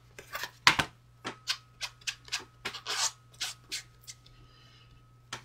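A chamois wiped in quick short strokes over a rubber stamp on its clear acrylic block, about a dozen strokes in the first four seconds, cleaning stray ink off the stamp.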